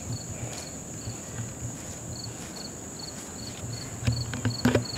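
Crickets chirping, two or three short chirps a second, over a steady high-pitched insect trill. A few sharp knocks near the end.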